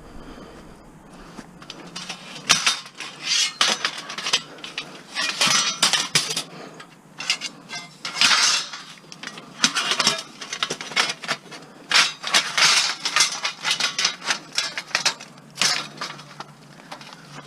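Loose scrap metal pieces clattering and clinking as they are handled and tossed together. The sound comes in irregular rattling bursts from about two seconds in.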